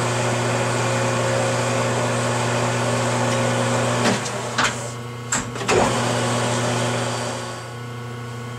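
Metal lathe running with a steady hum as the chuck spins. About halfway through come several sharp clicks and knocks as the spindle is stopped, and the running sound drops lower near the end.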